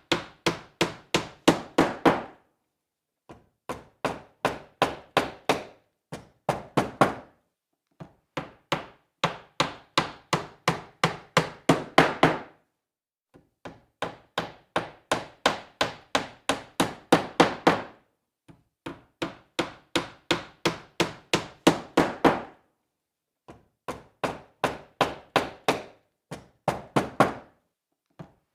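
Hammer driving a nail into wood: runs of quick blows, about four to five a second, each run growing louder, with short pauses between the runs.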